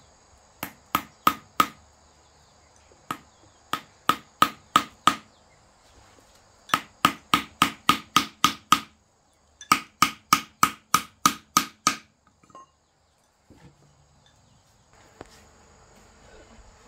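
Hammer driving nails into wood, in runs of several sharp blows about three a second, each with a short ring. Crickets trill steadily behind.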